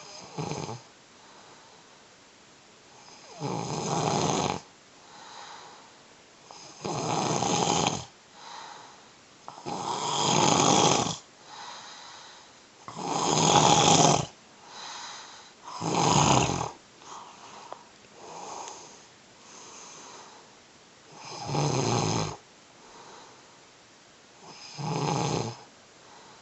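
A man snoring in his sleep: loud, rasping snores about every three seconds, with fainter breaths between. In the last third there is a longer stretch of only faint breaths before the loud snores resume. The snoring comes from sleep apnea and breathing made harder by a cold.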